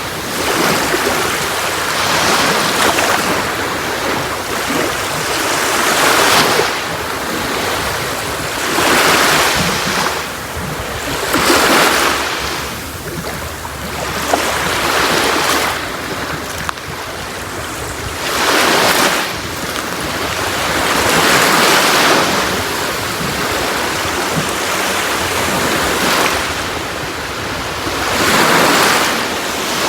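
Sea waves breaking on a shore: a surge of surf every few seconds at an uneven pace, with a steady wash of water between them.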